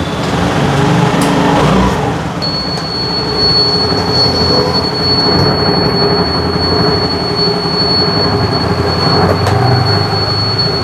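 Freshly rebuilt 2013 Honda Activa scooter's single-cylinder four-stroke engine idling steadily just after being started, with a steady high whine joining about two seconds in.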